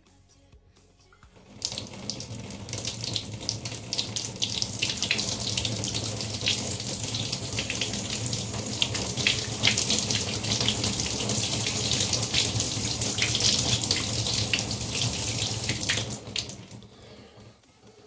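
Bathtub tap running at a fast flow, the water splashing over a small block held under the spout and into the tub. The water comes on about a second and a half in and dies down to a trickle about two seconds before the end.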